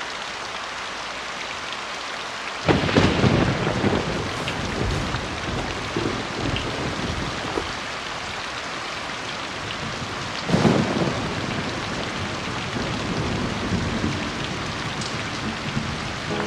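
Heavy rain falling steadily, with two sudden claps of thunder, about 3 seconds in and about 10 seconds in, each rumbling away over a second or two.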